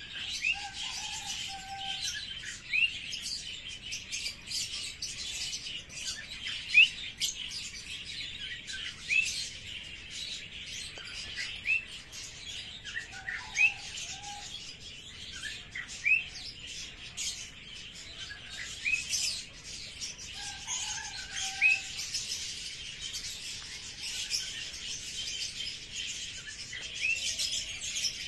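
Birds chirping: short rising chirps repeating every second or two over a steady high background chorus, with a lower call a few times.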